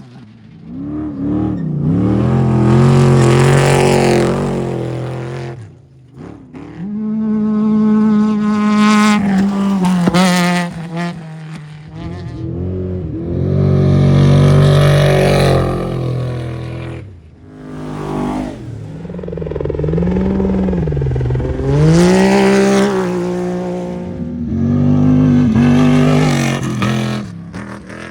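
Off-road race vehicles passing one after another, about five in turn, each engine swelling in and fading away, its pitch climbing and dropping as it revs through the gears.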